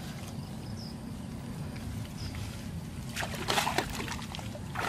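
Hands squelching and patting wet mud at the edge of a muddy pool, with a cluster of wet slaps about three and a half seconds in and another near the end.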